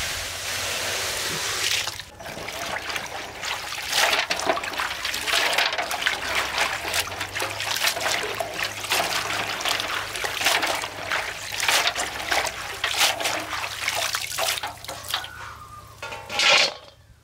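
Water pouring steadily for about two seconds, then irregular splashing and trickling, as when something is washed by hand in water.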